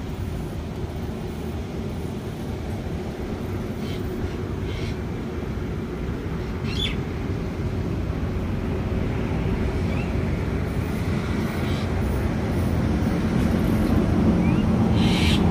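Steady low rumble of outdoor background noise that grows slowly louder, with a few short bird chirps and calls scattered through it.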